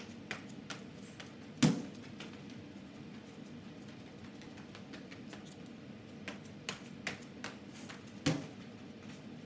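Medicine ball thrown and landing with two heavy thuds, about six and a half seconds apart, with lighter taps of sneaker footsteps on the rubber gym floor between, over a steady low room hum.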